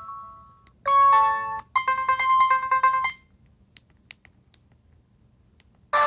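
LG Rumor cell phone playing its preloaded alert tones through its small speaker. A melodic electronic alert fades out, then about a second in a new synthesized alert plays, first a held chime and then a quick run of repeated beeping notes, ending about three seconds in. A few faint clicks of the phone's keys follow, and a ringtone starts right at the end.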